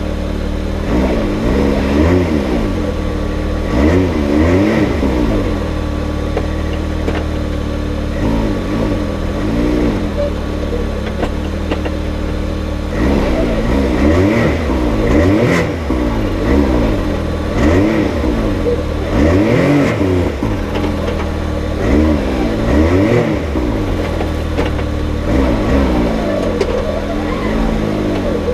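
Side-by-side UTV engine running under load, revved up and let back down again and again: about a dozen rising-and-falling surges over a steady engine note.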